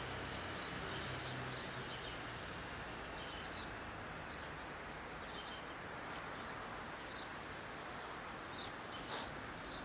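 Steady outdoor background hum with small birds chirping over and over in short, high chirps.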